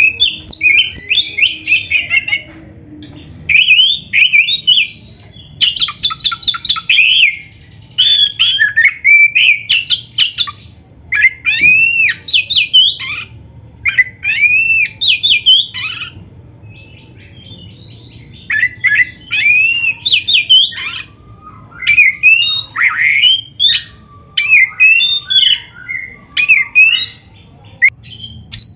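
Oriental magpie-robin (kacer) singing loudly in bursts of varied whistles, slurred rising and falling notes and rapid chattering runs, a song packed with phrases mimicked from other birds, broken by short pauses.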